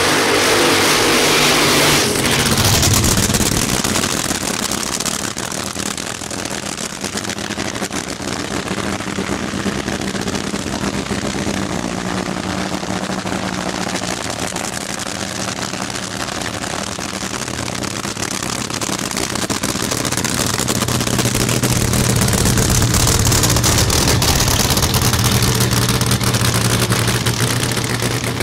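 Funny car engine: a loud roar for about two seconds that drops to a steady low-speed rumble, which swells a little near the end.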